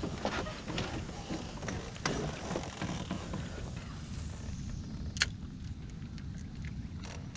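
Low steady rumble on a fishing boat, with scattered light knocks of handled gear and one sharp click about five seconds in.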